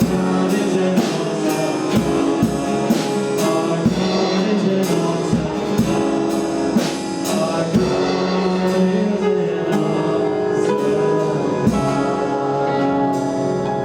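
Worship band music: sustained chords over a steady drum beat, with no clear words.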